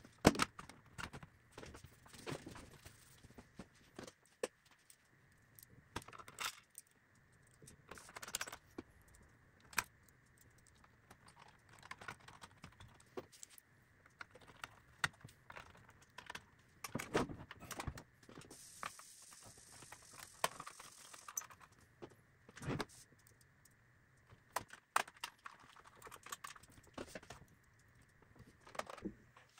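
Scattered metallic clicks, clinks and knocks as a hi-fi receiver's front panel and sheet-metal cover are handled and fitted back on during reassembly, with a brief hiss about two-thirds of the way through.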